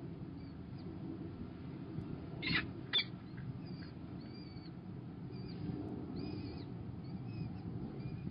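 Peregrine falcon chicks begging while being fed: thin, high, short cheeps repeat on and off, with two louder harsh calls about two and a half and three seconds in. A steady low rumble sits beneath them.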